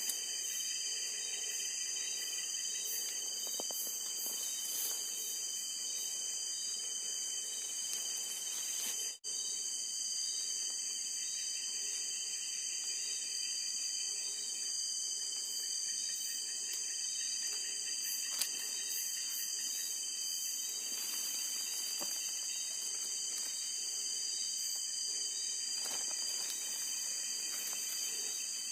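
Steady night chorus of crickets and other insects: several high, continuous trills layered over one another, briefly cutting out about nine seconds in.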